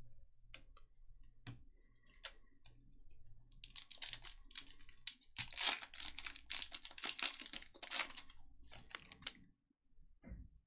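Trading cards and their wrappers being handled on a tabletop. A few scattered clicks come first, then a quick run of rustling, clicking strokes from about four to nine and a half seconds in, and a short low knock near the end.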